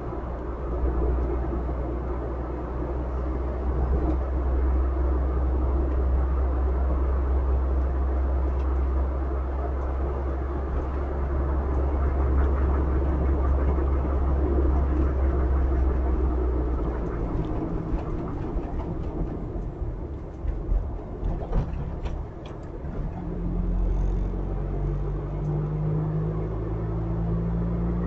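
Car driving, with steady engine and tyre road rumble. The rumble eases about two-thirds of the way through, with a few clicks, and near the end the engine note rises as the car speeds up.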